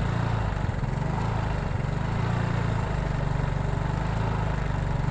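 A motor vehicle's engine running steadily as the vehicle travels along a dirt road.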